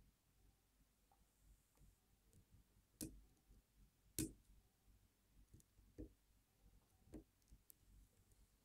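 Faint, scattered metallic clicks of a hook pick working pins inside a brass pin-tumbler lock cylinder under light tension, as the pins are lifted and set one by one. The two loudest clicks come about three and four seconds in, with softer ones after.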